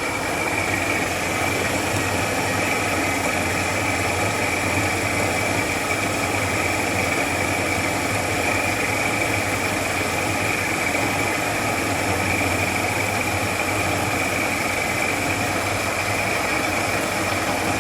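B30 round-column vertical milling machine running a cut, its table driven by the power feed: a steady motor hum with a constant high whine and an even machining noise.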